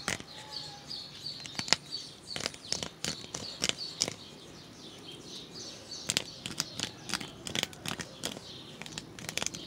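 Scattered sharp clicks and taps from handling the cable and parts, with small birds chirping over and over in the background.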